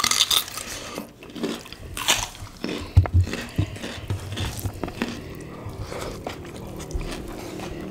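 Close-miked eating sounds: crisp crunchy bites and chewing, opening with a bite into a raw cucumber. A heavy low thump about three seconds in, then quieter chewing.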